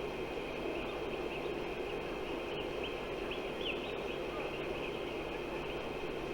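Steady outdoor noise of wind, with many faint, short, high chirps of small birds.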